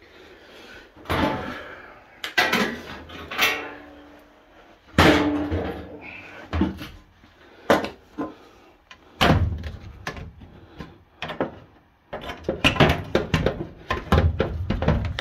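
Sheet-metal furnace access doors being handled and fitted back on the cabinet: an irregular run of clunks, knocks and rattles, heavier over the last few seconds.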